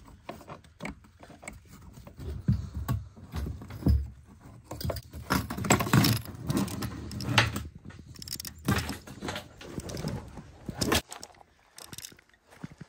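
Plastic fuel pump module of a 2007 Dodge Magnum being worked loose and lifted out of the fuel tank by hand: irregular plastic clicks, knocks and rattles, dying down near the end.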